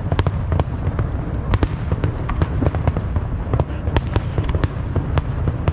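Aerial fireworks going off in quick succession: a continuous deep rumble of booms with many sharp cracks and crackles scattered irregularly throughout.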